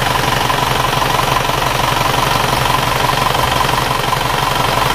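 Isuzu Panther four-cylinder diesel engine idling steadily, with an even rattling pulse. It runs slightly rougher than a matched engine, and the mechanic puts the clatter down to the timing gears rather than the pistons and liners.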